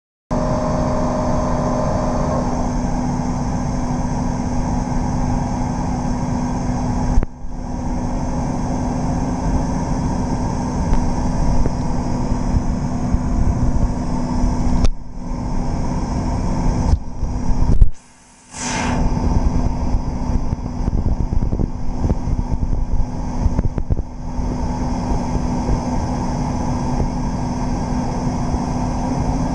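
Giddings and Lewis ram-type vertical borer running under power: a steady hum over a broad rushing machine noise. It is broken by a few abrupt short dropouts, the longest about 18 seconds in.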